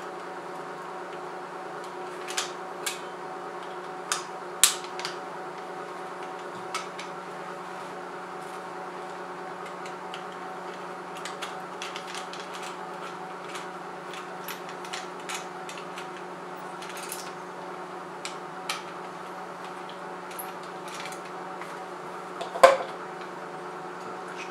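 Scattered light clicks and taps of small tools, screws and plastic headlight parts being handled, with one louder knock near the end, over a steady background hum.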